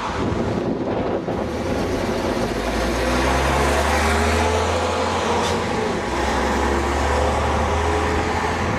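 Leyland Olympian double-decker bus's diesel engine running under load. Its note rises slowly, then dips briefly about six seconds in.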